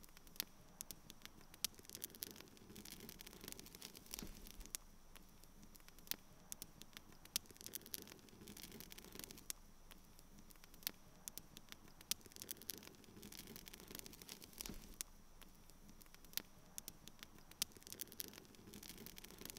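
Faint, irregular crackling: scattered sharp clicks over a low steady hiss.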